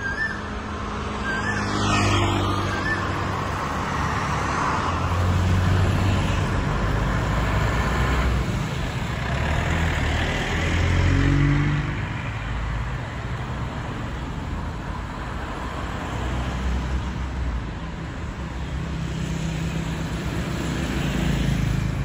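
Road traffic: cars and motorcycles passing along the street, engines swelling and fading several times over a continuous rumble.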